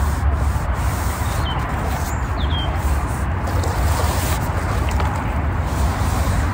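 Steady noise of distant motorway traffic with a low rumble underneath, and two short bird chirps about one and a half and two and a half seconds in.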